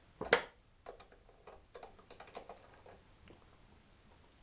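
Metal tool clicks: one sharp clack about a quarter second in, then a string of light, irregular clicks and taps as a socket and breaker bar work loose the cylinder head bolts of a small engine.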